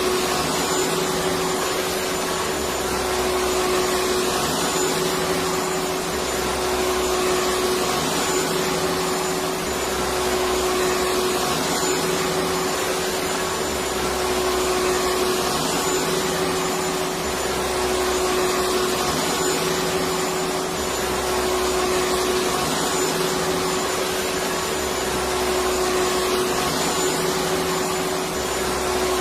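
Electric vacuum cleaner running continuously: a steady, even rushing hiss with a constant motor whine, played as soothing noise for babies. Underneath, a low hum swells and fades about every three and a half seconds.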